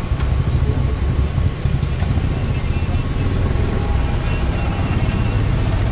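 Small electric table fan running right beside the microphone, its airflow buffeting it in a steady, unevenly fluctuating low rumble.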